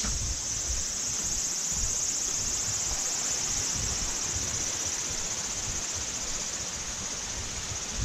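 Steady high-pitched drone of insects singing, holding level throughout, over a low rumble.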